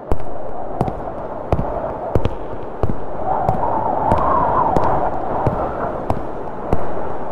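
Boot footsteps on stone paving in a slow, even stride of about one and a half steps a second, each step a sharp click with a low thud, over a rushing noise that swells in the middle.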